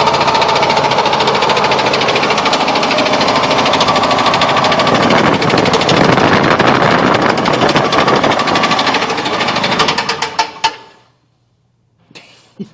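Ford Ranger 2.3 inline-four engine running with a loud, rapid, clattering rod knock: a connecting rod has come loose and broken through the block. The engine is shut off about ten and a half seconds in.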